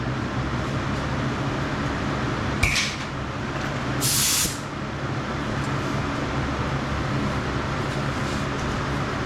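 Spray booth exhaust fan running steadily with a low hum. About two and a half seconds in there is a click with a short hiss, and about four seconds in a half-second blast of compressed air from the powder coating gun.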